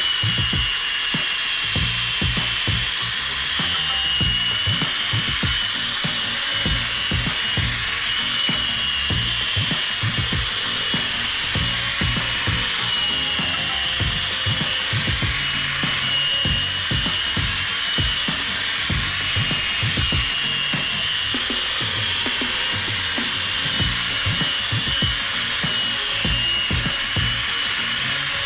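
800-grit sandpaper wet-sanding a cloudy plastic headlight lens: a steady, scratchy rasp of abrasive rubbing over the plastic, with irregular low knocks from the strokes.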